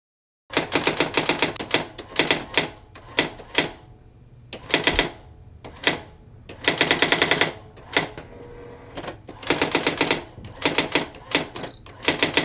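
Typewriter typing in quick bursts of keystrokes with short pauses between them, and a brief high ping near the end.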